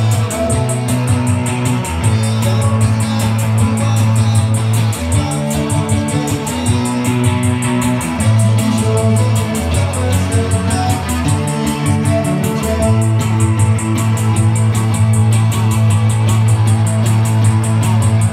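Live band playing lo-fi cold-wave punk. A Fender Jaguar electric guitar plays over a low bass line of long held notes, with a fast, steady ticking beat on top.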